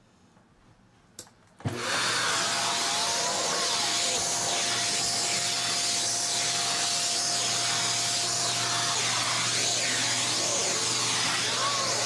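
AiRider canister vacuum cleaner starts suddenly about a second and a half in, then runs steadily with a constant whine while its brush nozzle is pushed back and forth over stair carpet, the sound swelling with each stroke.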